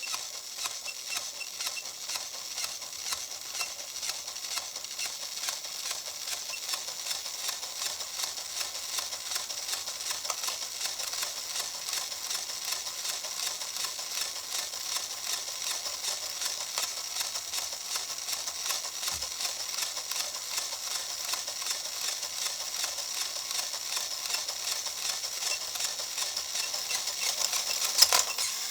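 Marble run toy running on high voltage: a continuous fast clicking rattle with a hiss, and one sharper, louder click near the end.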